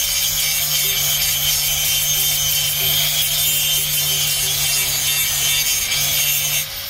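Angle grinder grinding down a weld on steel square tubing: a steady high whine with a grinding hiss, stopping near the end.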